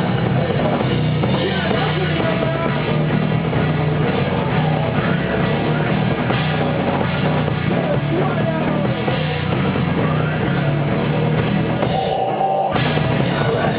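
Rock band playing loudly, with drums and some singing, in a poor-quality recording. The bass and drums drop out briefly about twelve seconds in, then come back.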